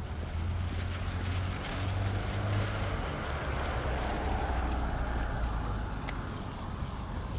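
A car driving past on a wet street: tyre hiss swells in the middle and fades away over a steady low rumble.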